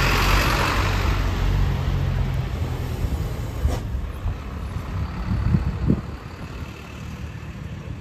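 A road vehicle passing: a low rumble with tyre hiss that is loudest at the start and fades away, with a few low thumps about five to six seconds in.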